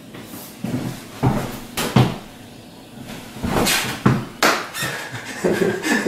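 Footsteps and handling knocks in a small room as a person walks up to a refrigerator: several separate thuds at irregular spacing.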